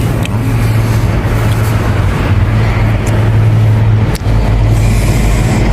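Steady low rumble of road traffic, a vehicle engine running, with one sharp click about four seconds in.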